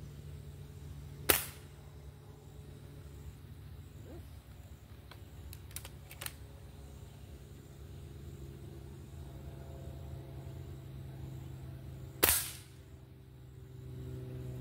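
.22-calibre Gamo Swarm Whisper air rifle fired twice, about eleven seconds apart, each shot a single sharp crack with a short ring-off. A few faint clicks come between the shots.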